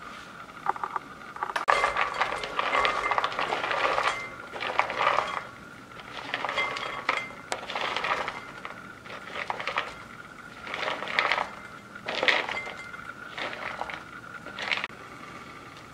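Shelled walnut pieces dropped by the handful into a glass bowl on a digital kitchen scale, rattling and clinking against the glass in a series of short bursts.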